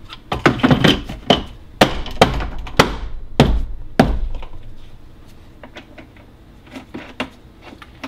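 Plastic cup-holder tray of a golf cart dash being set down and pressed into place: a quick series of hollow plastic knocks and thunks over the first four seconds, then a couple of light clicks near the end.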